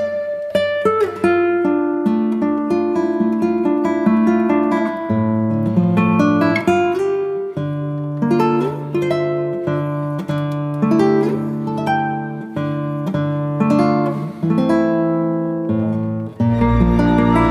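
Background music played on a plucked acoustic guitar, a run of picked notes over held bass tones, turning fuller and denser near the end.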